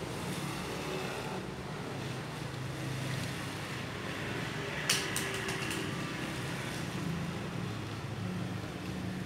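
Toyota Vios engine idling steadily, with one sharp click about halfway through.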